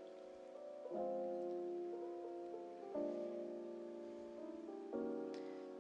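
Background music with slow, sustained chords, a new chord about every two seconds.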